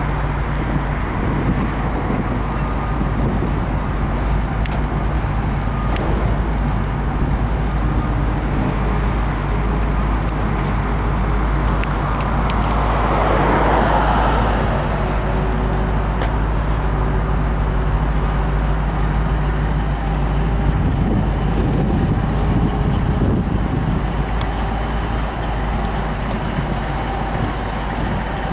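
A car engine idling steadily, with wind rumbling on the microphone; a broader noise swells louder about halfway through.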